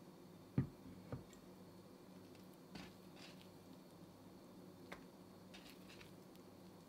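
Quiet, soft squishes of wet, sticky bread dough being stretched and folded by hand in a wooden bowl. Two dull thumps come about half a second and a second in, the loudest sounds here.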